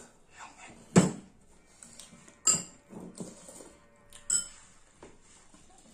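Dishes and cutlery clinking on a dining table during a meal: three short sharp clinks and knocks, about a second in, midway and near the end, the first one the loudest.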